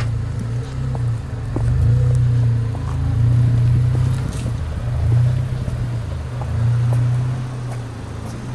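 A car engine running with a steady low rumble, its loudness swelling and easing every second or two without any change in pitch.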